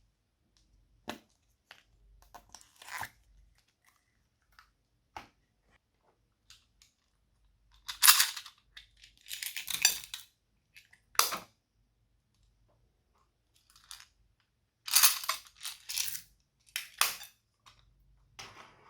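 Slime being squeezed and pressed by hand, giving irregular crackling and popping bursts, loudest about eight seconds in and again about fifteen seconds in.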